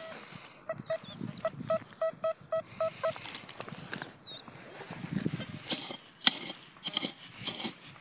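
Metal detector beeping a quick run of short, even tones, about four a second, for some two seconds, signalling a buried metal target. Then a hand pick strikes and scrapes into dry, stony soil in a string of sharp chops.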